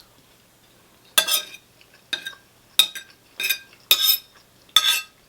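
Cutlery scraping and scooping rice in a ready-meal dish, about six short strokes spaced under a second apart, starting about a second in.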